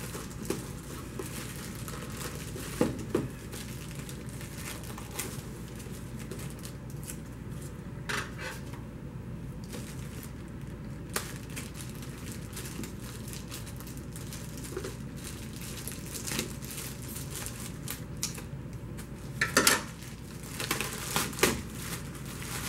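Plastic shrink wrap on a cardboard box crinkling and rustling as it is handled, cut with scissors and peeled off, with scattered light clicks and knocks. The loudest rustling and knocks come a few seconds before the end, as the wrap is pulled away.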